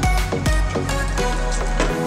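Background music with a steady beat and deep bass notes; the bass drops out near the end.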